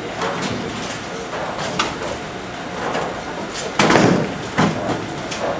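Bowling ball rolling down the lane and crashing into the pins about four seconds in, with a second, shorter clatter of falling pins just after.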